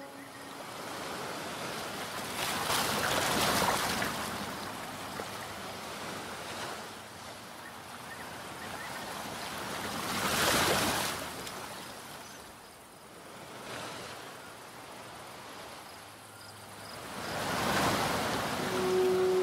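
Waves washing onto a shore, the surf swelling and falling away three times, about every seven seconds.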